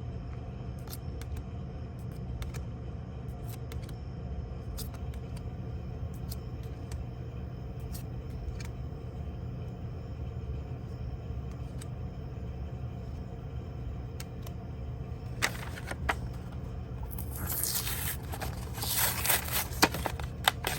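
A steady low hum with faint, scattered clicks of trading cards being handled. From about three quarters of the way through, a louder spell of crinkling and rustling as a plastic card pack wrapper is picked up and handled.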